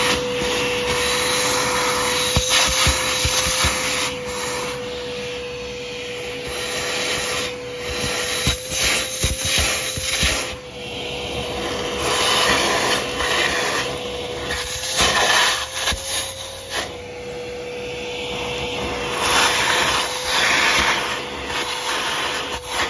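Shop vacuum running with a steady motor whine, its hose nozzle sucking loose rust and debris out of a rusted cylinder bore of a Ford 289 V8. The rush of air rises and falls as the nozzle is moved around the bore, with scattered small knocks and scrapes of the nozzle and rust chips.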